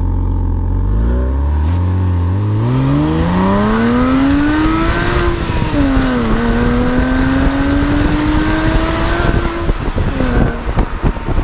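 Porsche Boxster 987's 2.7-litre flat-six heard at the tailpipe, pulling hard: the revs climb steadily for several seconds, dip sharply at an upshift about six seconds in, then climb again before easing off near the end. Wind and road noise run underneath.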